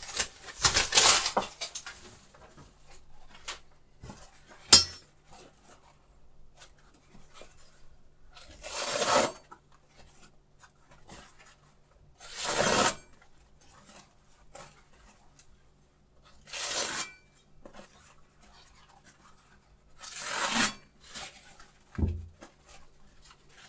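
Paper towel rustling as it is swept along a kitchen knife blade in several separate wiping strokes. A sharp click about five seconds in, and a dull thump near the end.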